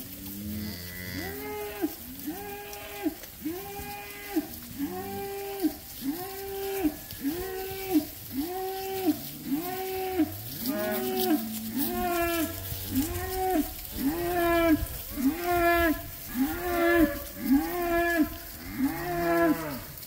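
Cattle bawling: a high bawl repeated evenly about once a second, with now and then a deeper moo from another animal underneath.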